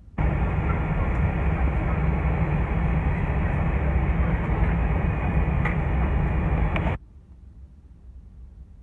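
Loud, steady rumbling cabin noise of a Boeing 747-400 airliner, deepest in the low end, with a couple of faint clicks near the end. It starts and stops abruptly.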